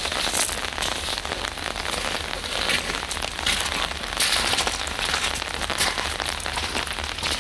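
Rain pattering steadily, a dense irregular patter of drops, over a low steady rumble.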